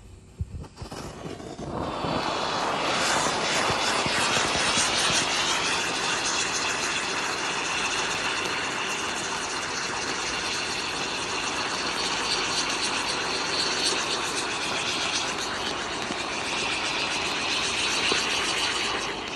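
A ground fountain firework ('Open Sesame') burning. It catches about a second in, builds to a loud, steady hissing rush with a high whistling tone that rises slightly a few seconds later, and cuts off as it burns out.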